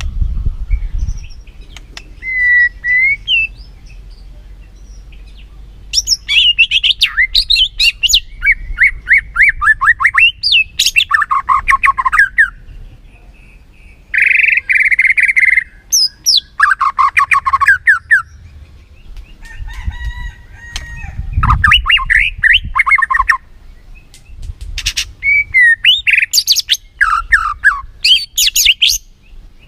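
White-rumped shama (murai batu) singing in loud bursts of varied, rapid whistles, trills and chattering phrases separated by short pauses: a full 'gacor' song used as a lure to set other shamas singing.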